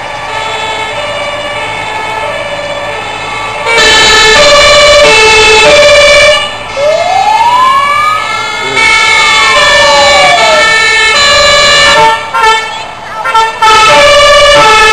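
Fire engines' two-tone sirens (German Martinshorn) sounding together as the trucks drive past, the alternating high and low notes fainter at first and loud from about four seconds in. Midway through, one siren tone glides up and back down in a single wail.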